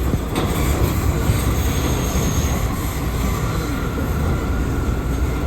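R179 subway car running through the tunnel: a steady rumble of wheels on rail. There is a click just after the start and a faint high wheel squeal about two seconds in.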